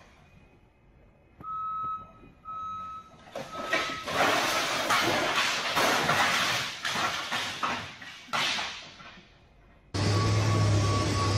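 A forklift's warning beeper sounds three times, then a tall stack of wooden pallets topples from high racking and crashes down in several seconds of loud clattering. About a second and a half before the end a steady engine drone comes in.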